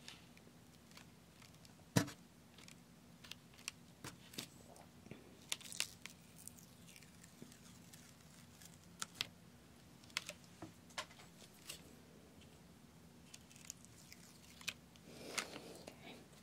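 Pointed wooden stick working on a sand art board's sticky adhesive sheet: irregular small clicks and crackles of the stick scraping and lifting the sheet, with one sharper tap about two seconds in and a soft rustle near the end.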